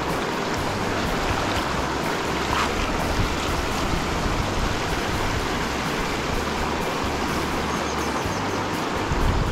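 Shallow river water running over a stony bed: a steady, even rush, with a low, uneven rumble underneath.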